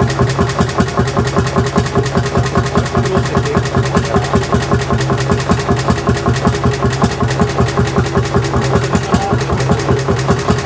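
Lanz Bulldog's single-cylinder two-stroke hot-bulb engine running steadily, with a rapid, even beat of firing strokes.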